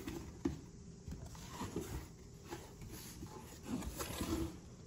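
Cardboard shipping box flaps being pulled open and handled: irregular rustling scrapes and small knocks of cardboard, the sharpest knock about half a second in.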